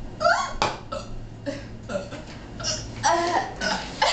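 A girl's short burps, several separate ones, with bursts of laughter among them.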